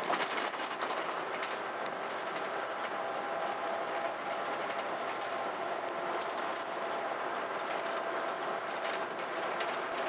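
Cabin noise of an Isuzu Gala highway coach under way: a steady rumble and hiss with a faint steady hum and scattered light clicks and rattles.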